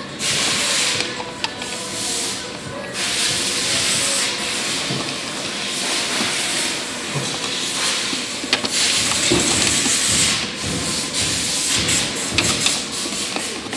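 Orange plastic trim-removal tool scraping and rubbing against a Mini Cooper tail light's plastic housing and painted body as it is worked along the gap to pop the clips: a harsh, rough hiss broken by short pauses.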